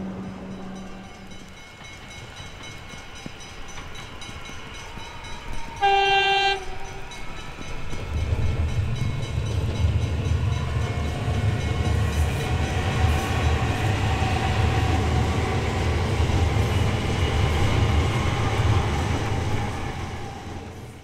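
A High Capacity Metro Train, an electric suburban train, sounds its horn once briefly about six seconds in and then passes: a loud low rumble from the wheels under a steady electric whine, fading near the end.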